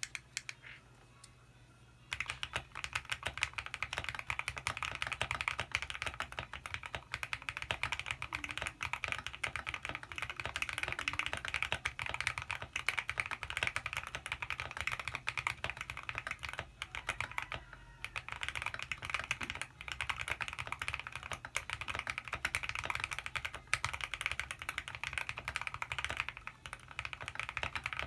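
Fast, continuous typing on an MW65 custom mechanical keyboard with lubed Akko Jelly Black linear switches, a polycarbonate plate, PBT keycaps and foam and tape mods, starting about two seconds in with a brief pause about two-thirds of the way through.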